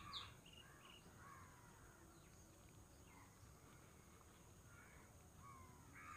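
Near silence with faint, distant bird calls, a few in the first second and again near the end.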